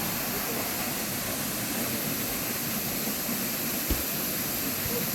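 Steady rushing of a waterfall, a constant even roar of falling water, with a brief low thump about four seconds in.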